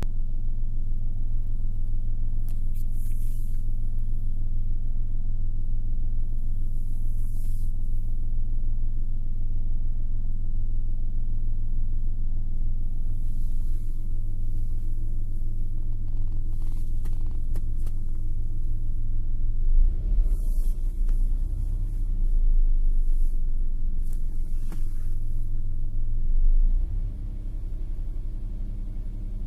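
Car engine idling steadily at a fast warm-up idle a few minutes after a cold start, heard from inside the cabin. A few brief rustles come and go over it, and the engine sound drops slightly near the end.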